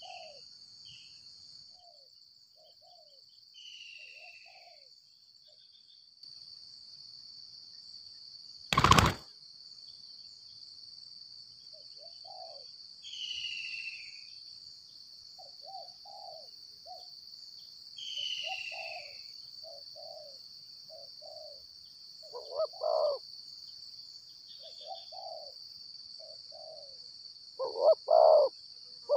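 Spotted doves cooing in short low notes, scattered at first, then louder and more closely grouped in the last several seconds, over a steady high insect drone. A single loud sharp click about nine seconds in, and a few falling whistled calls from another bird.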